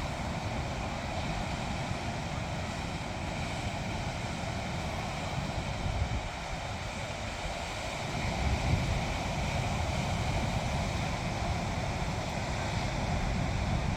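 Sea waves washing on the shore in a continuous surf, with wind rumbling on the microphone; the surf swells a little louder about two thirds of the way through.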